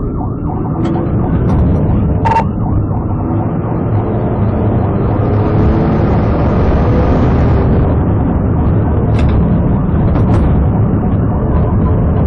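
Police cruiser driving fast in a pursuit, its engine and tyre and road noise loud and steady from inside the car. A few sharp clicks break through, one about two seconds in and two more near the end.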